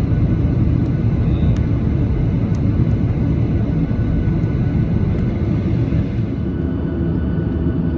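Boeing 737-800 with its CFM56-7B turbofan engines running: a steady loud rumble with a hiss above it. The hiss thins out near the end.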